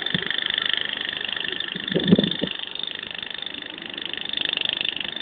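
Caterpillar 442E backhoe loader's diesel engine running as the machine drives and works its loader bucket, with a steady high-pitched whine. A brief louder knock comes about two seconds in.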